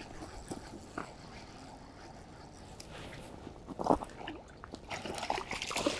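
Small hooked trout splashing at the water's surface close to the bank as it is reeled in: a few short splashes, the loudest about four seconds in, and more near the end.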